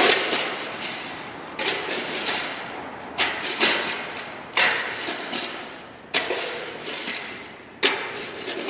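A series of heavy, irregular impacts, about eight, one every second or so, each echoing out in the large, bare shop hall: demolition work around broken-up concrete.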